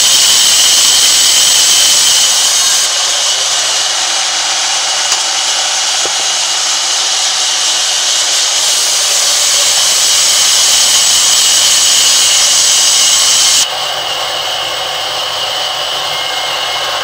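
Sawmill band saw cutting lengthwise through a large log: a loud, steady hiss with a high whine. The sound shifts slightly about three seconds in and drops suddenly a few seconds before the end.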